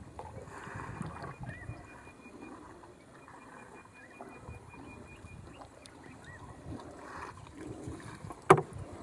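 Canoe on the water with soft, uneven sloshing of paddle and water against the hull, a faint pulsing high tone in the background. A single sharp knock near the end is the loudest sound.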